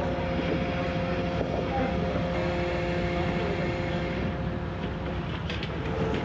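Ship's engine and deck machinery running: a steady low rumble with two constant whining tones over it. A few light knocks come near the end.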